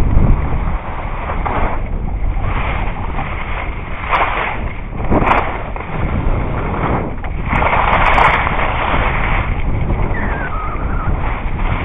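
Skiing heard through an action camera: wind noise on the microphone gives a steady low rumble, and skis scraping over the snow rise in hissing surges several times as turns are carved.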